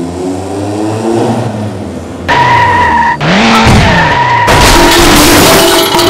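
Car engine revving as it comes on, then tyres screeching in a long skid from about two seconds in, louder and harsher over the last second and a half.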